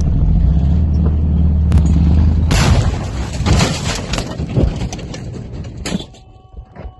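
A heavy engine rumbles low and steady for about two and a half seconds, then gives way to harsh rushing noise with crackles. The noise cuts off with a click about six seconds in.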